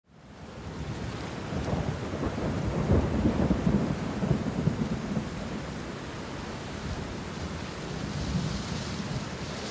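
Steady rain with a long rolling rumble of thunder, fading in from silence.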